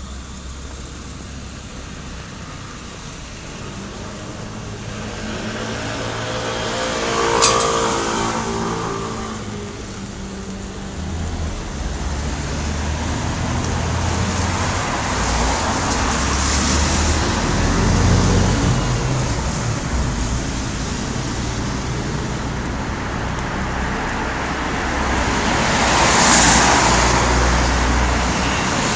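Road traffic in the rain: cars passing on a wet road with steady tyre hiss. One vehicle with an audible engine note passes close about seven seconds in, and more passes swell up in the middle and near the end.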